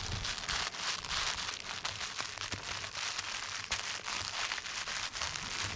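German Pinscher puppy chewing and gnawing a shaggy plush toy: a steady run of small clicks and rustles.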